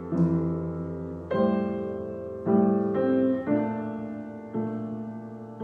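Keyboard playing the bare skeleton of a slow jazz piece: full chords over a bass note, a new chord struck about once a second and left to ring and fade.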